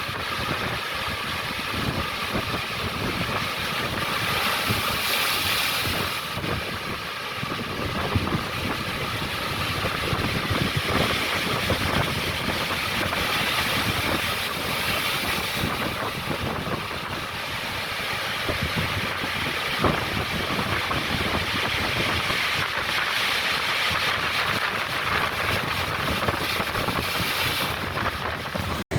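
Ocean waves washing onto the shore: a steady rushing noise that swells and eases slowly over several seconds.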